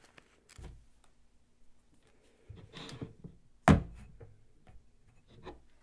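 Soft paper and cardboard handling sounds, with one sharp thunk a little under four seconds in as a square of cardboard is pressed down over a water-filled glass mug on a tabletop. A smaller knock follows near the end.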